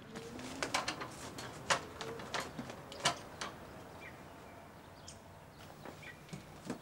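A metal letterbox flap clacking and rattling as a newspaper is pushed and crumpled into the slot, with paper rustling. The sharp clicks come thick in the first three seconds, then thin out to a few near the end.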